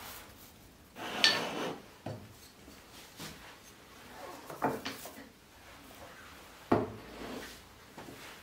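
Thin wooden strips being handled on a wooden workbench: a series of light wooden knocks and clatters as pieces are set down and pushed together, with short scraping slides between them. The loudest clatter comes about a second in, and a sharp knock comes near the end.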